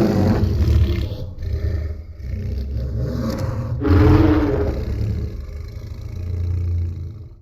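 Godzilla Earth sound effect from the anime trilogy: a deep, rumbling roar. It swells again about four seconds in, then fades away and stops near the end.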